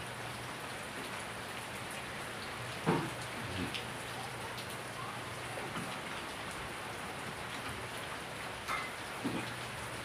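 Steady rain falling on garden plants, an even hiss, with a few louder drops tapping about three seconds in and again near the end.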